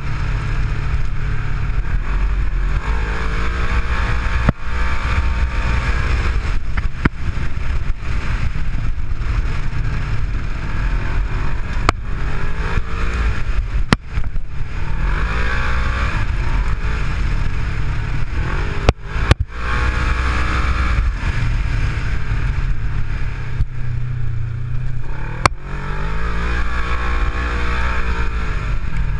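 Polaris RZR 900 side-by-side engine running on the move, its pitch repeatedly rising and falling with the throttle over a heavy low rumble. Sharp knocks and rattles come now and then as it rides over a rough dirt track.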